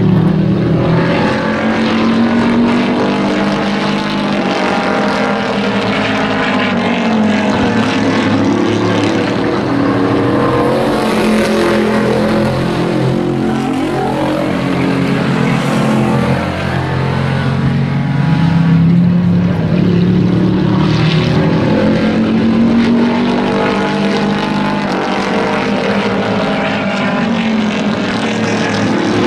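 Several pickup race trucks' engines running hard around an oval track. The pitch rises and falls repeatedly as the trucks accelerate down the straights, lift for the turns and pass by.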